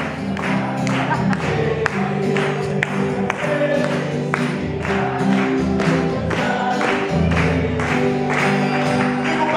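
Upbeat gospel-style worship song played by a small band with singing, and people clapping along to a steady beat.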